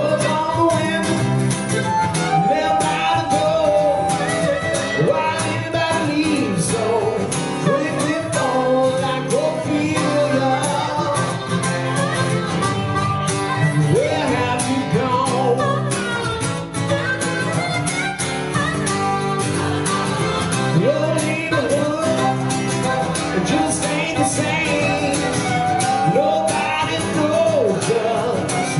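Harmonica playing a lead line, its notes often sliding up into pitch, over a strummed acoustic guitar, in a live country-style duo.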